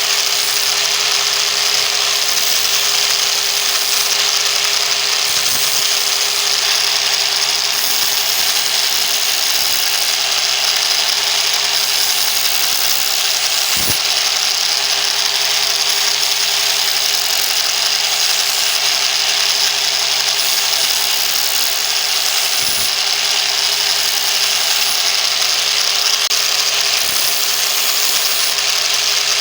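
Angle grinder with a sandpaper disc running steadily, a constant motor whine over a loud hiss, used for sharpening a knife.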